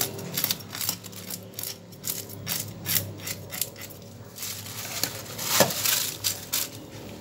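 Knife scaling a small tilapia on a wooden chopping block: a quick run of short scraping strokes, several a second, with a louder, longer scrape a little past the middle.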